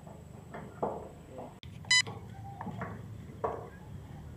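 A single short electronic beep from the sliding gate opener's control board, about two seconds in, over faint background talk.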